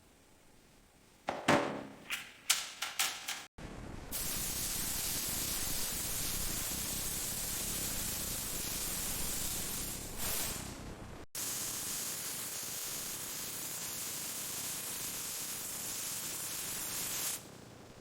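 A quick series of five or six sharp knocks, then a steady spraying hiss of compressed air, broken once about halfway and stopping near the end.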